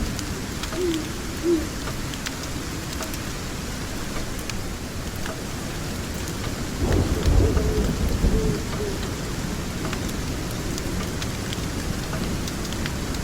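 Steady rain falling, with a low roll of thunder about seven seconds in that lasts a second or two. Faint scattered pops of a crackling fire sound through the rain.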